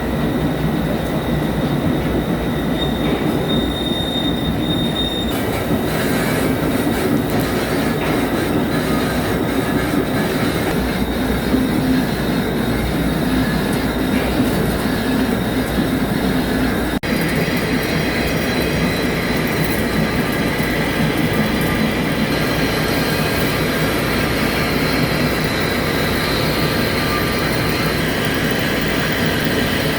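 Metal cutting on a CNC machine as a ductile cast iron (GCD500) tire mold segment is machined: a steady grinding rasp with faint high squealing tones. The sound changes abruptly about halfway through, becoming brighter and more hissing.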